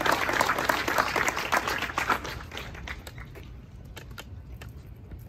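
Small audience applauding, the clapping dying away about two to three seconds in and leaving a few scattered claps.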